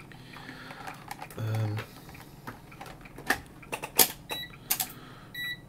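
A few sharp clicks and knocks of handling, then a short high beep near the end from a multimeter's continuity tester as a connection to ground is checked.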